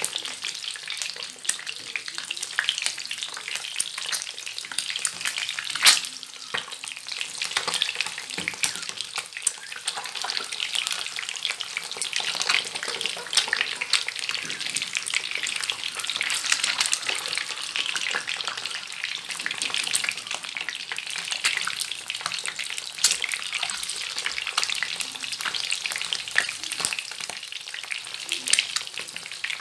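Oil sizzling and crackling around scored boiled eggs shallow-frying in a pan, with scattered pops and clicks of metal tongs as the eggs are turned; one sharp click stands out about six seconds in.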